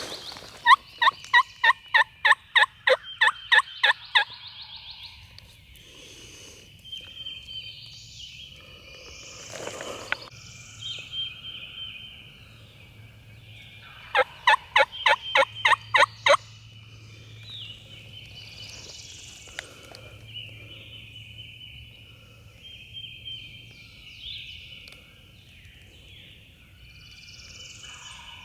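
Wild turkey yelping: two loud runs of evenly spaced yelps, about three a second, one near the start lasting some three seconds and another a little past the middle, with songbirds chirping faintly throughout.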